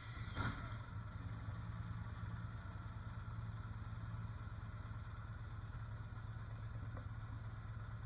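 Motorcycle engine catching with a brief swell in revs about half a second in, then idling steadily.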